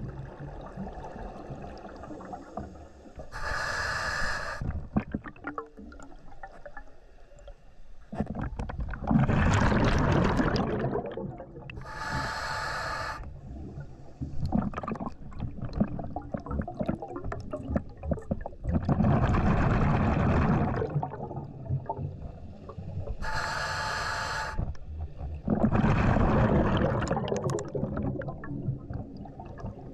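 Scuba diver breathing through a regulator underwater: slow breaths, each a short hissing inhale with a buzzy tone, then a longer gush of exhaust bubbles.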